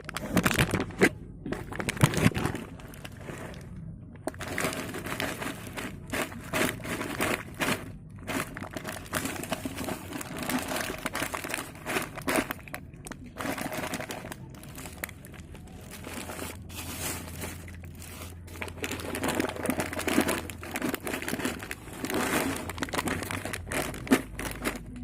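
Plastic packaging crinkling and crackling as it is handled, in irregular crackles throughout.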